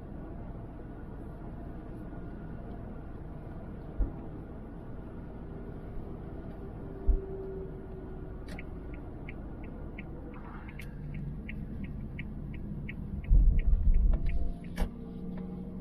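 Steady low rumble of a car in motion, heard from inside. In the second half a regular ticking comes in at about three ticks a second for several seconds, and a few heavy low thumps land, clustered near the end.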